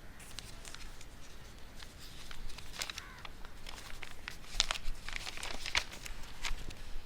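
Paper crinkling and rustling as a shop bill is unfolded and handled, a run of irregular crackles that grows busier about halfway through.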